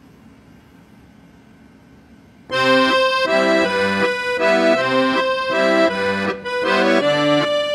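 A faint low hum, then about two and a half seconds in, music starts suddenly: a held note over short, repeated chords in a bouncy rhythm.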